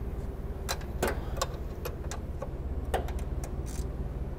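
A 13 mm wrench clicking as it tightens a bracket bolt: about nine sharp clicks at irregular intervals, over a low steady hum.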